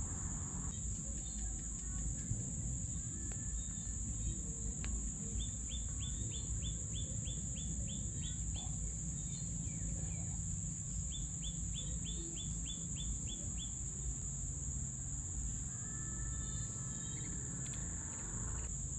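A steady high-pitched insect drone over low outdoor rumble, with a bird calling two quick runs of short down-slurred notes, about three a second; the first run comes about five seconds in, the second about eleven seconds in.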